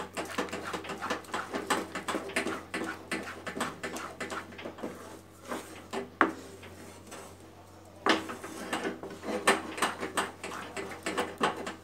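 Wooden spatula scraping and knocking around a frying pan as thick cashew paste is stirred: a quick run of short scrapes that eases off near the middle and picks up again about eight seconds in.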